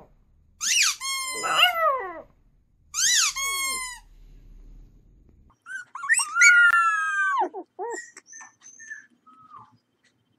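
A young puppy howls twice in short, wavering howls that rise and then fall in pitch. After a cut, a spitz-type puppy gives one longer howl that drops away at the end, followed by a few short yips.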